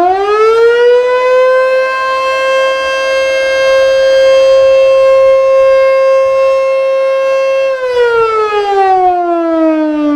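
Federal Signal Model 2 electromechanical fire siren sounding in a test: its pitch climbs over the first two seconds, holds a steady wail for about six seconds, then winds down near the end.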